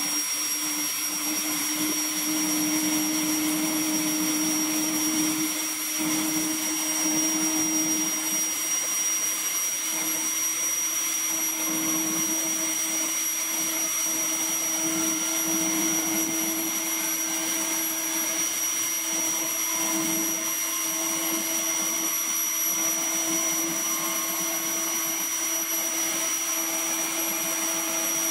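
Turbomeca Astazou IIIC2 turboshaft of an Aérospatiale Gazelle SA341F2 helicopter running during start-up, a steady high-pitched turbine whine over a lower hum, while the main rotor spins up. From about halfway through, faint notes creep slowly upward in pitch.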